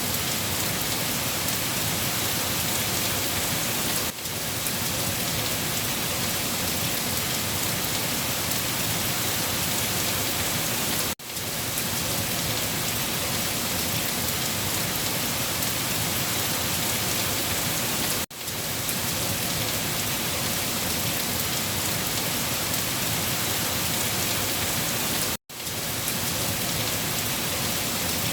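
Steady rain falling on a surface, an even hiss with no thunder, broken by very brief drops in level about every seven seconds.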